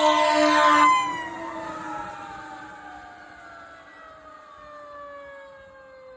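Fire truck air horn blasting for about the first second. Then the truck's Federal Q mechanical siren winds down in one long, slowly falling whine and grows steadily quieter, with an electronic siren wailing faintly under it.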